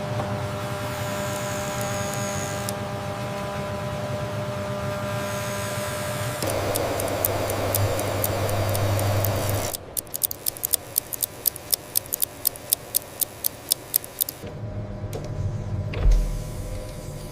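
Steady machine hum with several held tones that steps up louder about six seconds in. About ten seconds in it gives way to a run of sharp, evenly spaced clicks, about four a second, lasting some four seconds. Then the hum returns with a low thump near the end.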